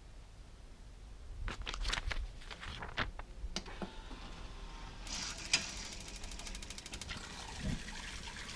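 Companion Aqua Cube portable gas hot-water shower being started: a few sharp clicks from its controls, then from about five seconds in a steady rushing hiss with fast, fine ticking as the unit starts up and water begins to run.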